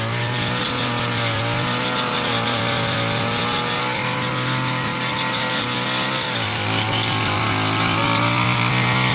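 Petrol brush cutter engine running at speed while cutting grass, its pitch dipping slightly and recovering as it takes load.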